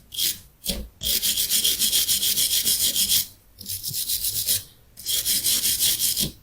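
Rapid scrubbing or rubbing strokes on a hard surface, in several runs of one to two seconds with short pauses between them.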